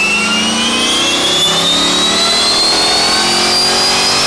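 C5 Corvette's V8 pulling hard on a chassis dyno, revs climbing steadily, with a high whine rising in pitch alongside it. It is a naturally aspirated baseline pull to check that the engine is unhurt after its nitrous hits.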